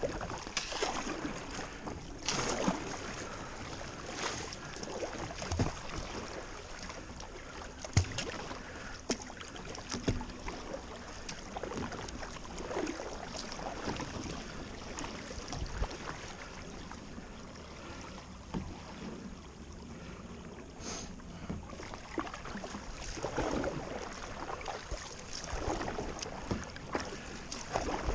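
Kayak paddle strokes dipping and splashing in river water, irregular splashes every second or few.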